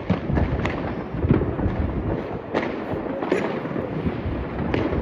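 Fireworks going off: about six sharp bangs in five seconds over a continuous rumble of further bursts.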